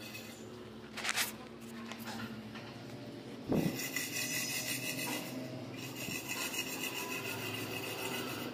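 Gritty scraping of wet cement and M-sand mortar being worked across a floor bed for tiles. There are short scrapes about a second in and a louder one about three and a half seconds in, then a fainter steady rasp.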